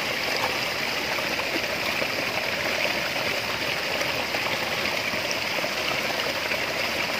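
Steady rush of flowing water, with faint small splashes and clicks as fish and debris are handled in a wet mesh net.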